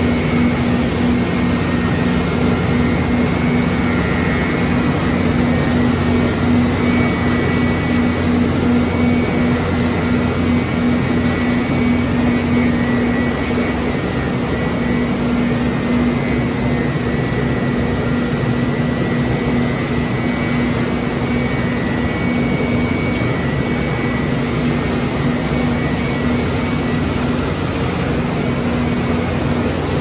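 Machinery of a running PP raffia plastic washing line: a steady, loud mechanical drone of electric motors and conveyors, with a constant low hum and a faint high whine above it.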